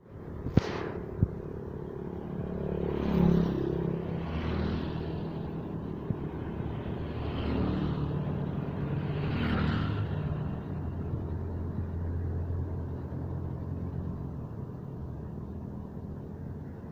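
Steady low engine rumble from motor vehicles, with several vehicles passing close by one after another. There are two sharp knocks about half a second and a second in.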